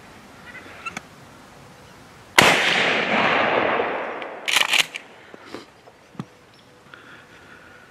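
A single gunshot about two and a half seconds in, its report rolling away and fading over about two seconds. A few short scrapes and clicks follow.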